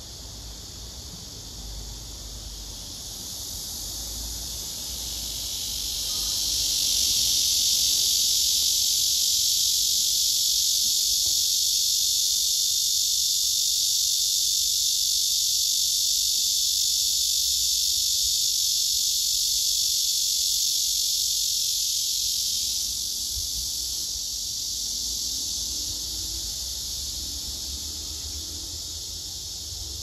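Male cicadas singing: a steady, high, shrill buzz that swells over a few seconds, holds loud for about fifteen seconds, then drops away to a softer buzz near the end.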